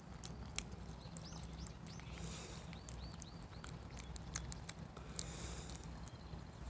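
Calico cat eating soft canned pâté from a ceramic bowl: faint, irregular wet clicks and smacks of licking and chewing.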